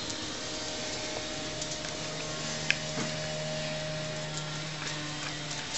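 A steady, low mechanical hum that starts about a second in and stops just before the end, over a light background hiss, with one sharp click about halfway through.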